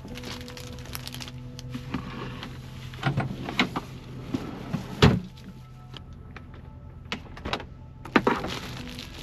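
A steady low hum with soft background music, broken by scattered knocks and clatter; the sharpest knock comes about five seconds in and another near the end.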